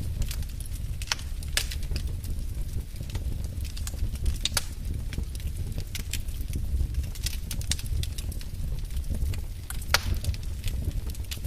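Wood fire crackling in a fireplace: irregular sharp pops and snaps over a low, steady rumble of burning, with a louder pop about ten seconds in.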